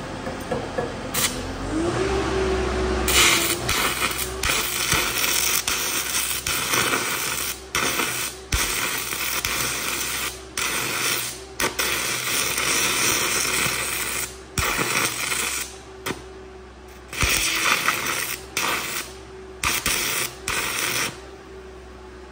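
Loud crackling hiss of a welding arc at 800 amps on half-inch rebar with brazing flux, cutting out and restarting many times before stopping near the end. Under it the engine of the engine-driven welder runs steadily, rising in pitch about two seconds in as it picks up.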